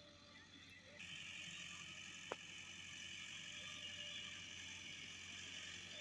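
Massey Ferguson 385 tractor's four-cylinder diesel engine running steadily at a distance as it pulls a laser land leveller, heard as a faint low hum. A hiss grows louder about a second in, and there is a single sharp click a little after two seconds.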